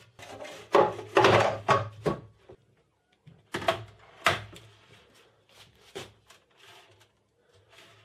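Chipboard worktop offcuts being slid onto a wooden table frame, scraping and knocking against the wood. This is followed by a few separate knocks as items are set down on the shelf, then fainter clicks.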